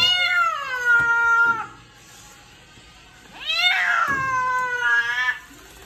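Persian cat meowing while being bathed and rinsed: two long, drawn-out meows, a protest at the bath. The first ends about a second and a half in, and the second starts about three and a half seconds in and lasts about two seconds.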